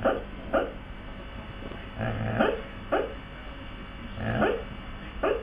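A husky making muffled woofs and yips while it sleeps: about six short calls, each falling in pitch, some in quick pairs and two of them drawn out a little longer.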